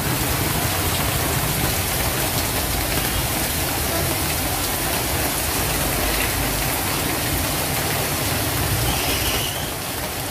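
Heavy rain pouring down onto a waterlogged street, a steady dense hiss with a low rumble underneath.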